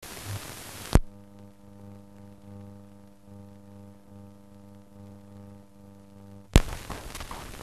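Old film soundtrack noise: hiss for about a second, a sharp click, then a steady electrical hum with a row of overtones, pulsing slightly, cut off by a second loud click near the end that gives way to hiss and crackle.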